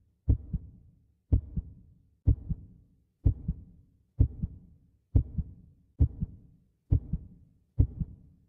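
Heartbeat sound effect: a slow, steady lub-dub, each beat a deep double thump, about one beat a second.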